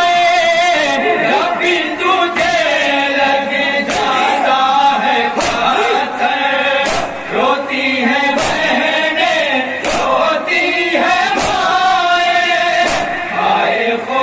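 A group of men chanting an Urdu noha (Shia mourning lament) in unison through a microphone, led by one reciter, with sharp chest-beating (matam) strokes keeping time about every one and a half seconds.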